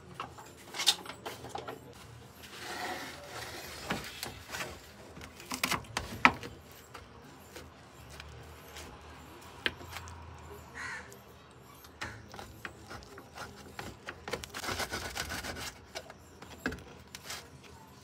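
Kitchen knife cutting through a baked pizza's crust on a metal baking tray: uneven scraping strokes, with several sharp clicks of the blade against the tray.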